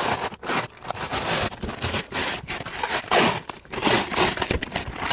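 Thin plastic protective film being peeled off car floor carpet and crumpled by hand, crinkling and tearing in irregular crackles.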